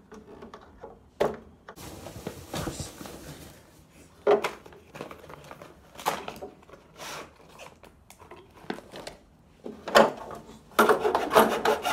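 Hand tools scraping, clicking and knocking against the plastic back casing of an old CRT television, in irregular short spells, loudest near the end.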